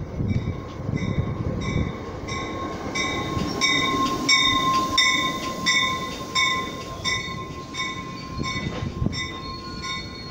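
New Jersey Transit passenger train passing close along the platform: a steady metallic squeal and a rhythmic ringing that pulses about two to three times a second over the rumble of the cars. Both are loudest in the middle and fade toward the end.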